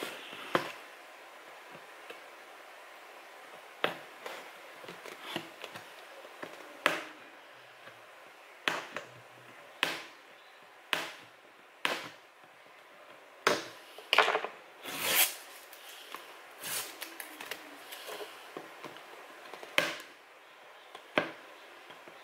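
A knife cutting and scraping at the seal stickers and cardboard of a speaker box, in irregular sharp scratches and clicks with a few longer scrapes around the middle, along with hands knocking against the box.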